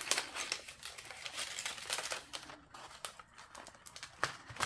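Packaging being handled and opened by hand, crinkling and rustling in quick irregular crackles.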